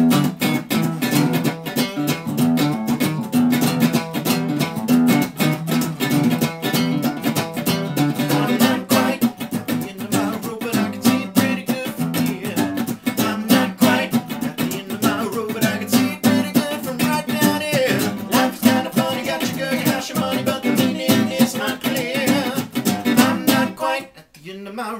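Two guitars, a hollow-body archtop electric and an acoustic, playing an instrumental intro together: steady strumming with picked lines over it. The playing breaks off suddenly about a second before the end.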